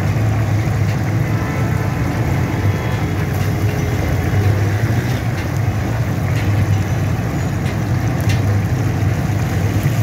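Hot oil bubbling and sizzling in a large karahi as fish and chicken pieces deep-fry, over a steady low rumble.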